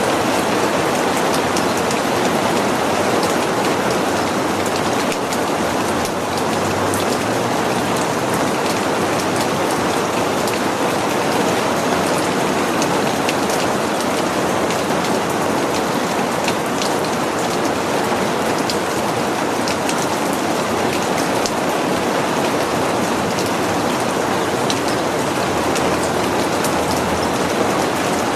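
Steady rain falling on a greenhouse, a constant hiss of rain with many small drop ticks striking the panes.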